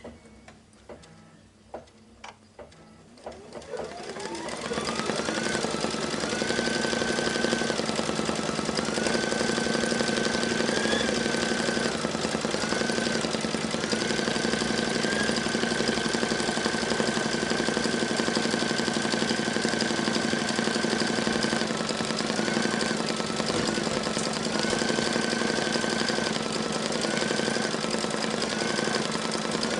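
Brother Luminaire embroidery machine stitching an applique placement line. A few clicks as it starts, then its motor whine rises over a couple of seconds and settles into a steady run, dipping briefly in pitch now and then.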